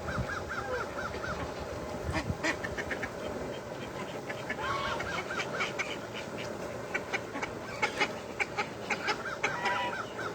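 Domestic ducks and geese calling. There are three quick runs of about six short calls each, one at the start, one around the middle and one near the end, with scattered sharp clicks in between.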